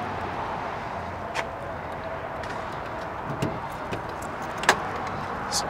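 Steady outdoor traffic noise from nearby roads, with a few light clicks, the sharpest a little before the end.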